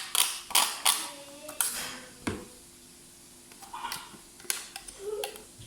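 Plate and kitchen utensils clinking and knocking as they are handled, with a cluster of sharp clinks in the first couple of seconds and a few more near the end.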